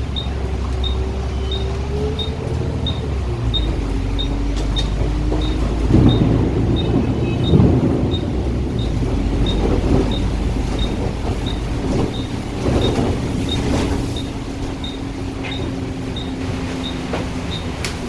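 A double-decker bus's engine and drivetrain running, its pitch rising and falling as the bus moves, over a low rumble and heavy rain. A small ticking repeats about twice a second, with louder rumbling swells partway through.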